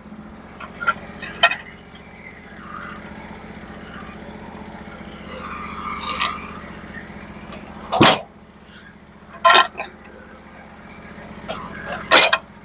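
Norwood HD36v2 portable bandsaw mill's engine running steadily, with several sharp knocks and clanks over it.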